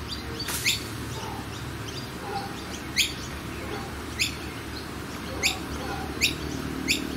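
Birds chirping: short, sharp, falling chirps at irregular intervals about a second or so apart, over a low, steady background hum.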